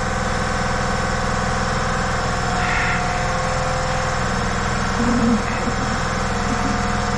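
A machine runs steadily in the background with an even low pulsing drone. Faint metal clinks come about two and a half and five seconds in as a heavy steel planetary ring-gear drum is handled at the tractor's front hub.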